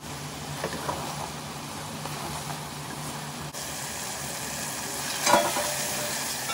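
Food sizzling in a nonstick pan as a wooden spatula stirs and scrapes through it. There are several scraping strokes, the loudest about five seconds in.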